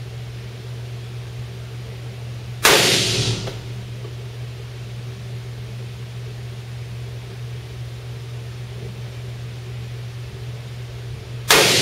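Two .45 ACP pistol shots from a Norinco 1911-pattern Commander, the first under three seconds in and the second near the end, about nine seconds apart. Each sharp report rings briefly off the small range room, over a steady low hum.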